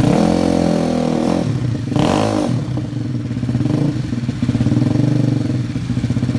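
Yamaha Mio scooter's 215cc four-valve DOHC engine revved from idle: a longer rev at the start, a sharp blip about two seconds in, then two smaller blips, settling back to a steady pulsing idle.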